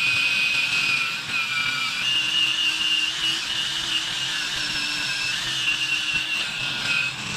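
Cordless Snap-on power tool spinning a foam polishing pad against aluminium pontoon rails: a steady high-pitched motor whine that wavers slightly in pitch.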